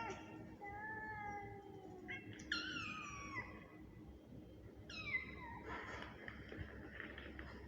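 Cat meowing: three drawn-out meows, the second and third falling in pitch.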